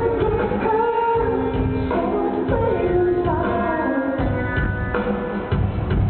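A live rock band playing in a large arena, heard from the audience: a drum beat with a sliding lead melody over it.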